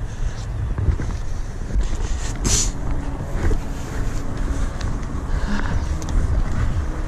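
Wind buffeting the microphone in a steady low rumble, with a brief rustle about two and a half seconds in.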